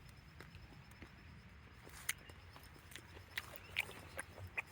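Footsteps crackling through leaf litter and undergrowth, with a few sharper snaps from about two seconds in, over a low rumble.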